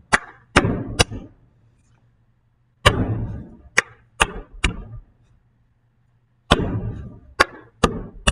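Hand percussion pattern on a wooden desk: a pat, a clap, then one hand slapped down on the desktop and the other laid on top. Sharp strokes in groups of four, each group led by a heavier thump, repeating about every three and a half seconds, three times.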